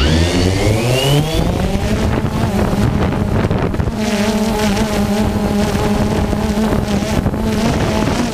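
DJI Phantom 2 quadcopter's four motors and propellers spinning up for takeoff: a whine that rises in pitch over the first second and a half, then settles into a steady buzz as the drone lifts off and hovers.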